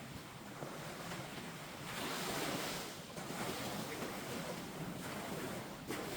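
Pacific Ocean surf: waves breaking and washing up the beach in a steady rush, swelling louder about two seconds in.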